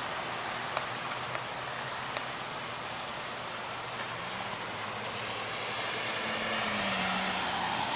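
Steady hiss of rain and wind, with a few sharp drip-like ticks in the first few seconds. In the second half a low engine hum rises slightly, like a vehicle passing on the wet road.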